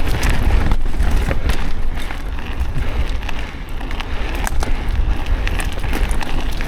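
Mountain bike being ridden along a loose dirt and rock trail: wind rumbling on the microphone, tyres running over the ground, and many scattered clicks and rattles from the bike and stones.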